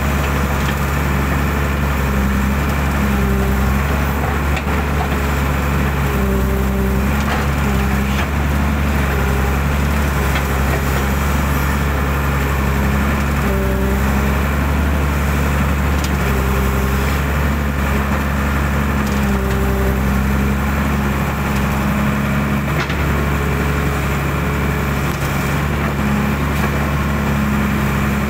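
Hydraulic excavator's diesel engine running steadily under work, with short whining notes that come and go every few seconds as the hydraulics move the arm and bucket.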